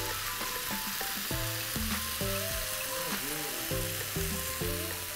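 Steady sizzle of diced capsicum, onion and tomato frying in oil in a nonstick pan as tomato puree is poured in, with soft background music underneath.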